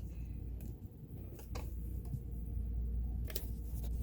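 A few light clicks and taps from handling the sewing machine's metal parts during oiling, over a steady low hum.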